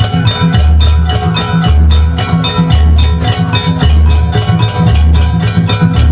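Jaranan dance music: hand drums and ringing metal gamelan-style percussion over a deep bass beat that falls about once a second.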